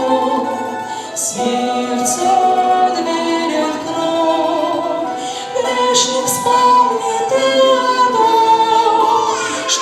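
Women's voices singing a Christian hymn in harmony, with little or no accompaniment.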